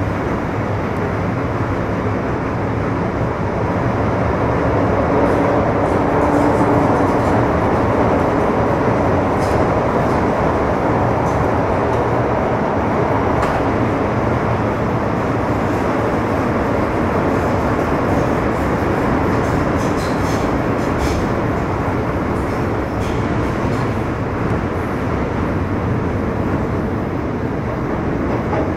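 Interior running noise of an MTR Metro Cammell M-Train (C250 I-Stock) electric multiple unit, with Mitsubishi RCT chopper control, travelling at speed between stations. The noise is a steady rumble with a few short clicks over the track, easing slightly in the later seconds.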